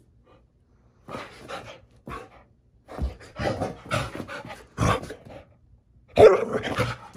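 Dog panting and huffing in short bursts during play, with a louder bark about six seconds in.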